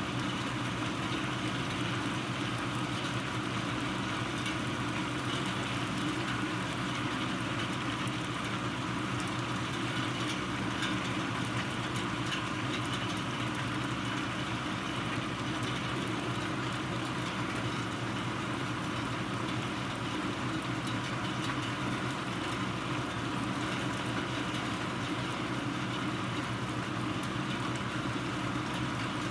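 Rain falling steadily during a thunderstorm, an even wash of noise with no thunderclap standing out.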